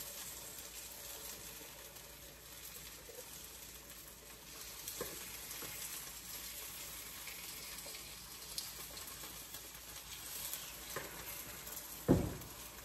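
Chopped peppers and onions sizzling in hot oil in a frying pan as they are spooned in from a bowl. There are a few light spoon clicks, and a louder knock near the end.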